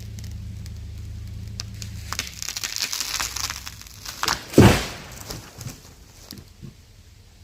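A dead ash tree cracking and splitting with a run of sharp snaps, then crashing to the ground in one heavy thump about four and a half seconds in, followed by a few smaller knocks of branches settling. A low engine rumble, fitting the truck pulling it over, dies away about two seconds in.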